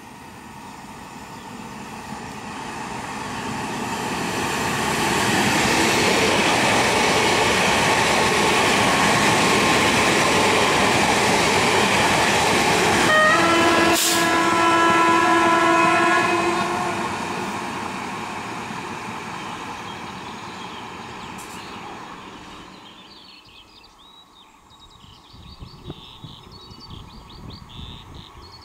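Two coupled Newag Impuls EN63A electric multiple units passing at speed: wheel-and-rail noise builds over about five seconds, stays loud, then fades away. A train horn sounds for about three seconds about halfway through. Near the end, quiet outdoor ambience with faint birdsong.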